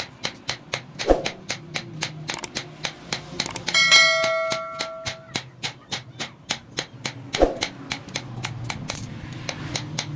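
Rapid hand-hammer blows on a steel anvil, about four to five a second, forging a red-hot sickle blade. About four seconds in, a loud bell-like ring sounds and hangs on for over a second. Two heavier blows with a dull thud land near the start and near the end.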